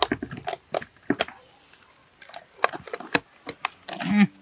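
Irregular light clicks and knocks as lids and sticks are fitted onto filled kuchi ice (popsicle) cups. A brief low call near the end is the loudest sound.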